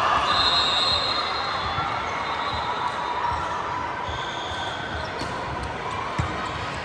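Indoor volleyball rally on a gym court: sneakers squeaking on the floor and a sharp hit of the ball about six seconds in, over a steady murmur of voices in a large, echoing hall.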